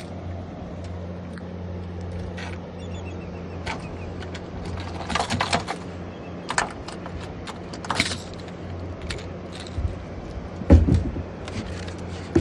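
A motor idling with a steady low hum, with scattered clicks and rattles and one heavier knock near the end.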